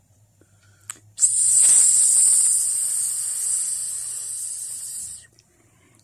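A loud, steady hiss starts abruptly just after a click about a second in, fades slowly and cuts off after about four seconds.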